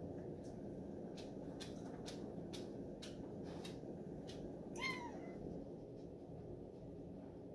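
Steady low room hum with a few faint clicks in the first half, and one short high-pitched cry that falls in pitch about five seconds in.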